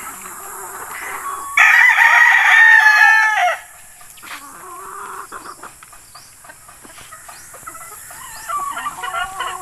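A game rooster crowing once, a loud crow of about two seconds that drops in pitch at its end, with softer clucking around it.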